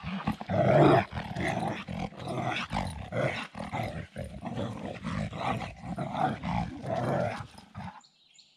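A dog play-growling in quick rough bursts while playing excitedly, falling quiet shortly before the end.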